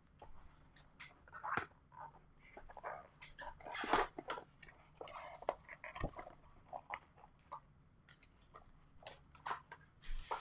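Plastic and foil wrapping of a 2021 Bowman Chrome box and its card packs crinkling and tearing as they are opened by hand, with scattered clicks and crackles, loudest about four seconds in.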